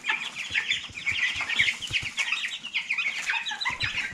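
A brooder full of young chicks, white meat birds and Rhode Island Reds about twenty days old, peeping continuously: many short high peeps overlapping with no break.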